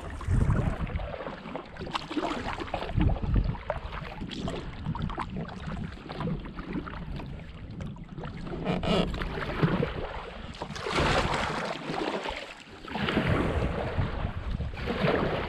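Kayak paddle strokes dipping and splashing in river water, uneven in timing, with wind rumbling on the microphone.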